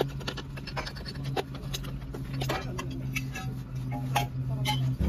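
Hands packing and smoothing gritty sealing sand against the steel mould of a rail thermite weld: irregular scratches and clicks of grit and hands on metal, over a steady low hum.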